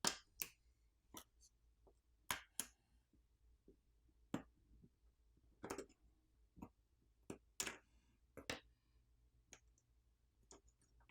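Irregular light clicks and taps of small metal and plastic phone parts and tools being handled as a smartphone is taken apart, about a dozen sharp clicks with quiet between them.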